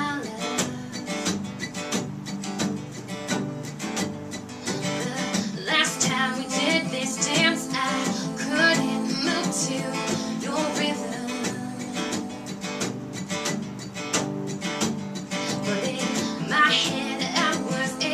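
Acoustic guitars strumming and picking a song's instrumental passage, played live.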